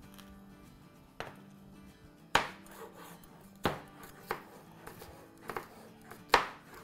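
Kitchen knife slicing a red pepper into strips on a cutting board: about six separate knocks of the blade against the board, irregularly spaced, over faint background music.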